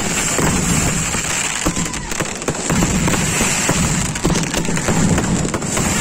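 Firecrackers going off in a dense, continuous crackle of many rapid small pops and bangs.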